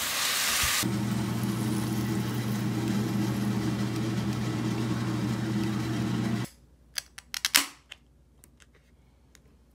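Sizzling of food frying for the first second. Then a kitchen appliance's steady electric hum runs for about five and a half seconds and stops abruptly. A few sharp clicks and a knock follow.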